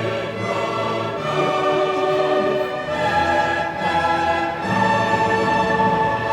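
Orchestral music with sustained chords that change every second or two.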